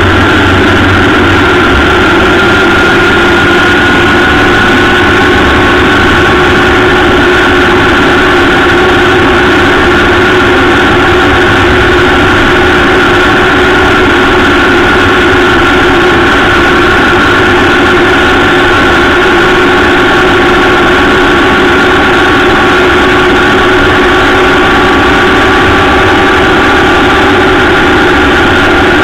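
Honda Gold Wing motorcycle cruising at a steady speed, heard from a camera on its fairing. A constant loud drone of engine, tyres and wind rush carries a steady whine that hardly changes in pitch.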